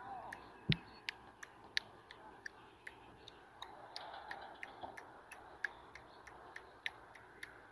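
Fingers snapping over and over, sharp clicks at about three a second, a few louder than the rest, made as a sync marker for the recording.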